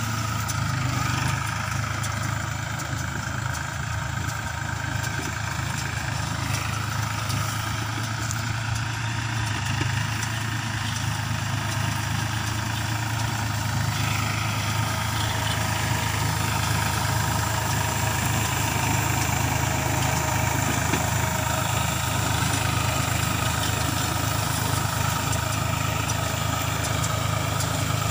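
New Holland 4710 tractor's three-cylinder diesel engine running steadily under load as it pulls a PTO-driven round baler, the baler's mechanism adding a steady higher whine. It grows slightly louder toward the end as the tractor comes closer.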